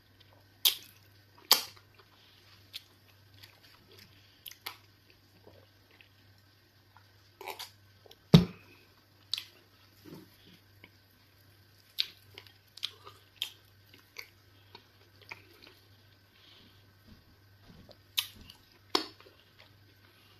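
Close-miked chewing and wet mouth smacks while eating soft eba swallow dough with egusi soup, with sharp sticky clicks at irregular intervals. One heavier thump about eight seconds in, over a steady low hum.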